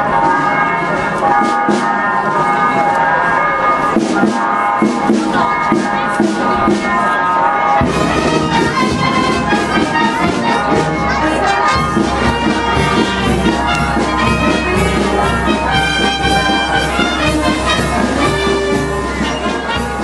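Brass band playing festive march music, with trumpets and trombones. Strong low notes come in about eight seconds in and fill out the sound.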